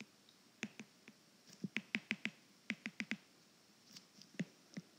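A pen tapping and clicking against a writing surface during handwriting: about fifteen short, light clicks in irregular clusters, thickest through the middle.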